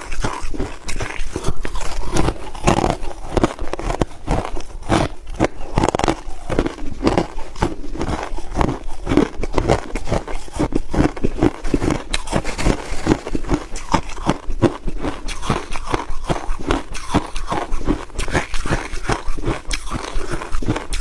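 Crushed ice being bitten and chewed close to the microphone: a rapid, unbroken run of loud crunches.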